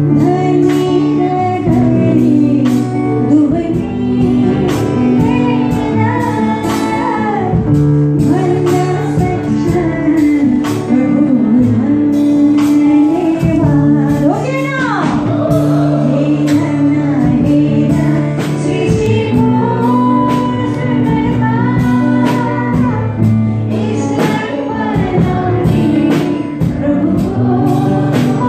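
A woman singing a Nepali Christian worship song into a microphone over instrumental accompaniment of held chords with a regular beat.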